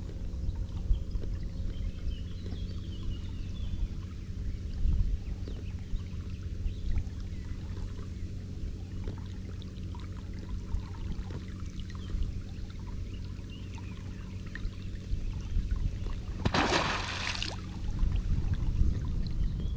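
A swimming beaver dives with one loud splash near the end, lasting about a second. Before it there is only a steady low rumble of background noise and soft water sounds.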